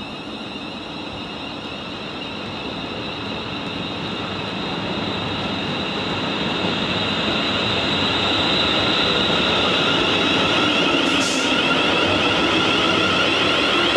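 Heathrow Connect Class 360 electric multiple unit running by on the rails: a steady high whine from its traction equipment over wheel and rail rumble, growing steadily louder and then holding.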